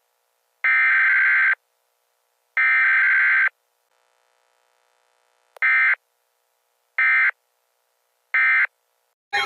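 EAS/SAME digital header tones from a NOAA Weather Radio alert: harsh buzzing data bursts, two long ones about a second apart, then three short end-of-message bursts. A warbling alert siren cuts in at the very end.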